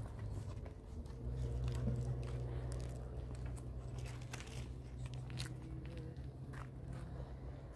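Footsteps crunching on stony, gravelly dirt: irregular sharp crunches over a steady low rumble.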